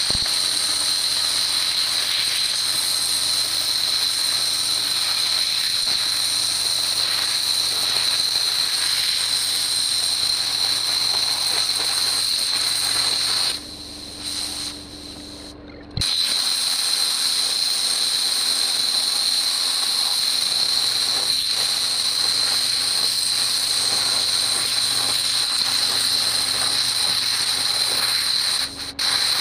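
Handheld plasma cutter cutting half-inch abrasion-resistant steel plate: a loud, steady hiss of the arc and air with a high whine over a low hum. The cut breaks off for about two seconds about halfway and starts again with a click, and breaks off briefly again near the end.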